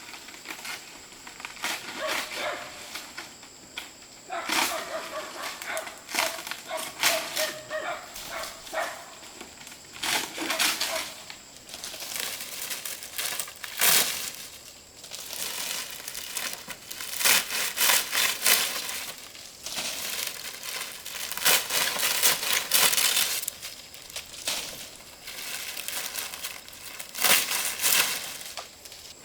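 Irregular rustling, crinkling and crunching noises in uneven clusters, with a brief held pitched sound a few seconds in.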